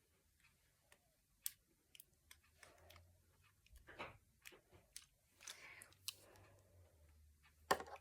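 Faint handling noises of a plastic Transformers toy: scattered light clicks and soft rustles, with one louder click near the end.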